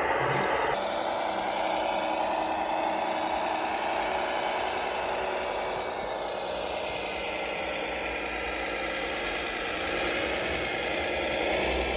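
Radio-controlled scale construction model running: a steady mechanical whine and rattle from its motors and drive, with a faint pitch that slides down and rises again in the second half.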